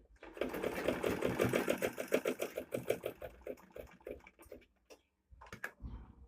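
Butterfly manual sewing machine stitching a buttonhole: a fast, even clatter of about eight stitches a second that slows and stops a little past halfway, followed by a few separate clicks near the end.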